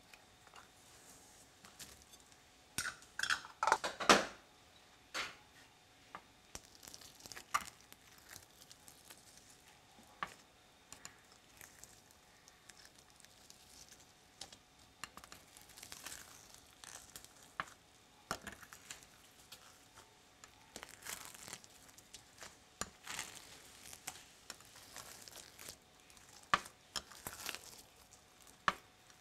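Glossy slime being mixed by hand with plastic beads and small eraser charms in a glass dish: sticky crackles and squelches with scattered clicks of beads against the glass. A louder clatter about three to four seconds in, as the cup of charms is emptied into the dish.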